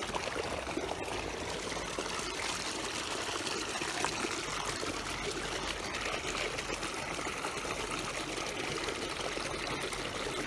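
Running water trickling steadily, as from a small stream or water flowing between paddy fields.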